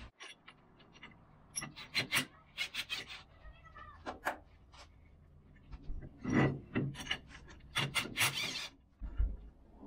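Cordless drill/driver working the small nuts and bolts that hold the weights on a Polaris RZR primary clutch: brief whirs of the drill among many sharp metal clicks and knocks of the tool and parts.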